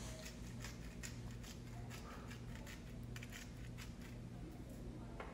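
Faint scratching and rustling of a paper towel being rubbed around a cast iron skillet, a run of light irregular scrapes, over a steady low hum.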